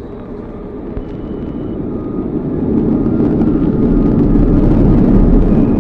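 A deep, dense rumble that swells over the first three seconds and then holds loud.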